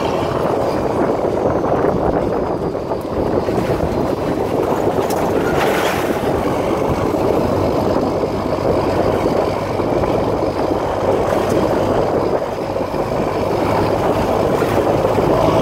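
Diesel pickup truck with vertical exhaust stacks running as it tows a trailer. It is heard from the open trailer right behind it, mixed with steady wind and road noise.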